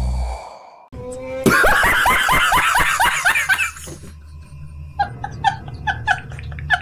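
Laughter sound effect: a burst of rapid laughing starts about a second and a half in, then short, high-pitched snickers come in quick succession near the end.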